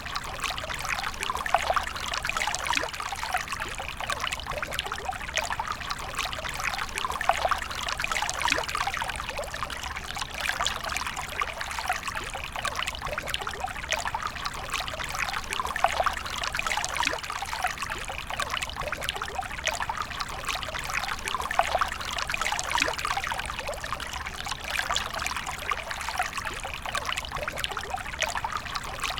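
A stream of water pouring and trickling steadily, with a constant patter of small splashes.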